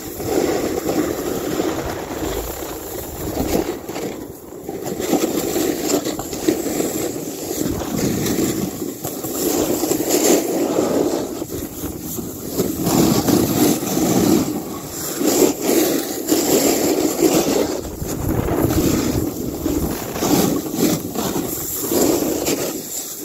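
Snowboard sliding over snow: a rushing, scraping hiss of the base and edges on the snow that swells and fades every few seconds, with wind buffeting the microphone.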